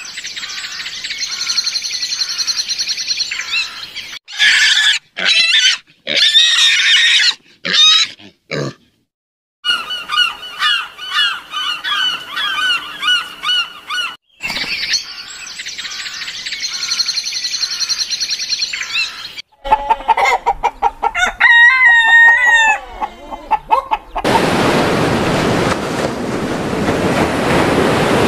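A run of short bird-call clips: high chirping, then squawking and honking calls with sharp cuts between them. From about 24 s in, waves break on a beach in a steady rush of surf.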